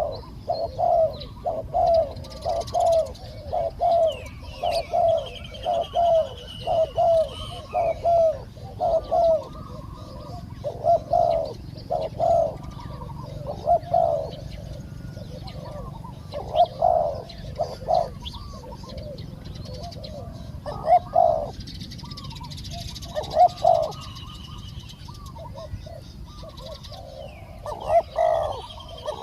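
Spotted doves cooing: a run of short coo phrases, back to back at first, then in spaced groups. Smaller birds chirp faintly in the background.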